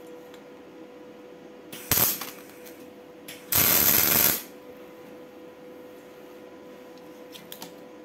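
MIG welding arc crackling in two short bursts: a brief tack about two seconds in, then a longer weld of about a second.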